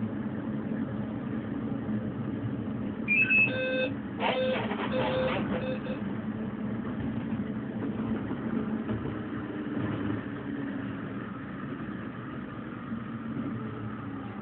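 Electric light-rail train running along its track, a steady rumble from the cab, with a horn sounding about three seconds in: a short blast, then a longer one lasting about two seconds.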